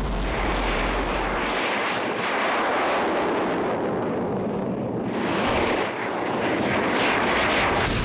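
XCOR rocket engine test firing: a loud, steady rushing noise that starts abruptly and dips briefly about six seconds in.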